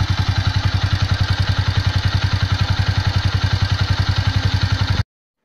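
Yamaha YBZ 125's single-cylinder four-stroke engine running steadily with an even, rapid beat, now quite smooth with new crankshaft main bearings fitted in place of the worn ones that were making the noise. The sound cuts off suddenly near the end.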